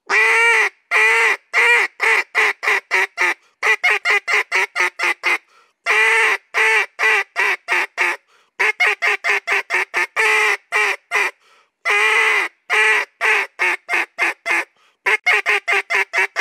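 Echo Timber duck call blown loud as a come-back call, the last-ditch call for ducks that are leaving. A few long, pleading quacks give way to a fast run of short chop-chop notes, and the sequence comes round about three times.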